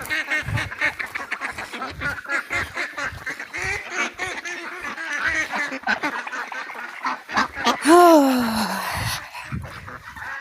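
Penned ducks and geese calling over one another, quick quacks and honks, with one louder long call falling in pitch about eight seconds in.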